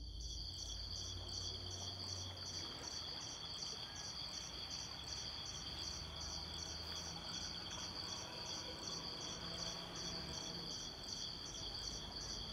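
Crickets chirping in a steady high-pitched rhythm, about three chirps a second, over faint outdoor background noise.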